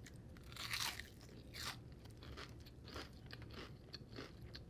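Close-up sound of a person biting and chewing crunchy food, with a louder crunch about a second in and a steady run of smaller chewing crunches after it.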